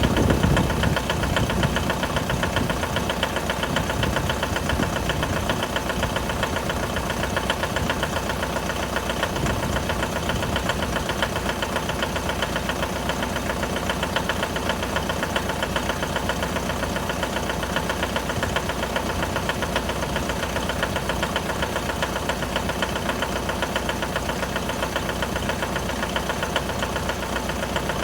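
Mitsubishi L200's 4D56 2.5-litre turbodiesel idling with a steady, rapid knock, the knock this engine makes when cold.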